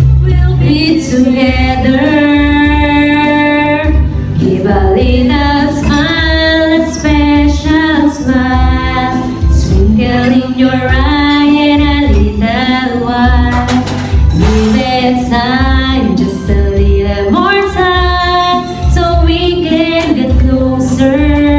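A woman singing held, gliding notes over backing music with a steady bass beat.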